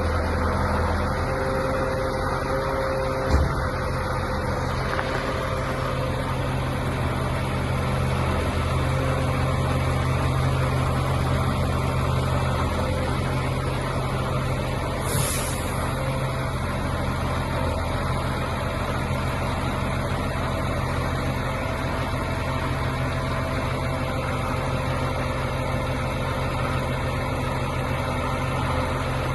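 Diesel engine of a Mercedes-Benz Actros 8x4 concrete-pump truck running steadily. There is a single knock a few seconds in and a brief hiss about halfway through.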